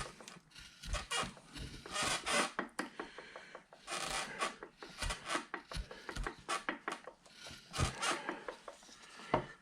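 Hand-carving V-tool cutting into a wood carving, a run of short, irregular scraping cuts as the arm is shaped.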